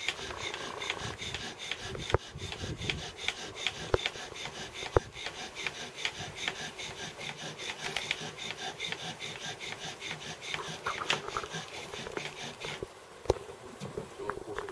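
Bow drill at work: a bow saws back and forth to spin a wooden spindle in a wooden hearth board. The friction makes an even, rhythmic rasping of about three strokes a second, and the board smokes as it heats toward an ember. The strokes stop about 13 seconds in.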